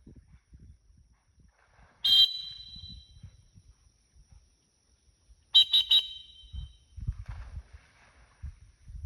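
A high-pitched whistle: one long blast about two seconds in, then three quick short toots a few seconds later.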